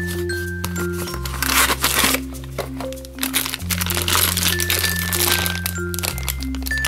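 Background music with a repeating bass line and a simple melody, over the crinkling of a clear plastic bag being handled.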